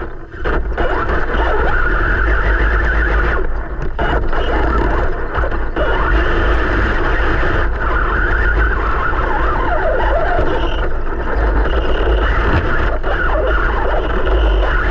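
Traxxas TRX-4 RC crawler's electric motor and drivetrain whining as it drives, heard close up through a camera mounted on its body, over a steady low rumble. The motor eases off briefly near the start and again about four seconds in.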